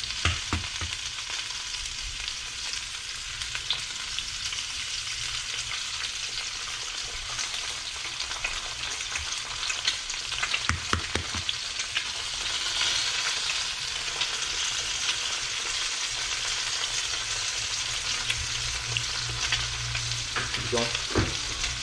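Sliced hot dogs frying in a pan with a steady sizzle. A utensil stirring and scraping in the pan adds short clicks and a few knocks.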